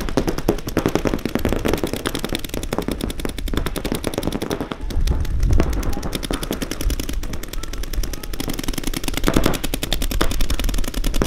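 Paintball markers firing rapid, continuous streams of shots, the pops coming many times a second without a break.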